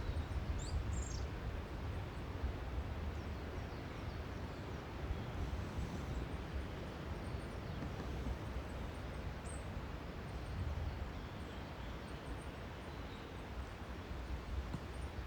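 Steady rumble and hiss of wind and surf, with a few faint, high bird chirps about a second in and again later, likely from a robin singing somewhere out of sight.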